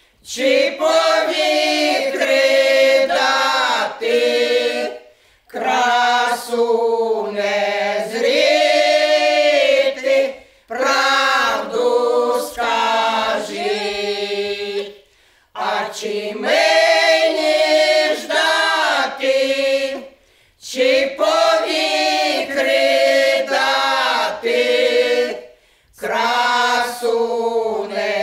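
Women's folk ensemble singing a Ukrainian folk song a cappella, several voices together, in phrases of about five seconds with short breaks for breath between them.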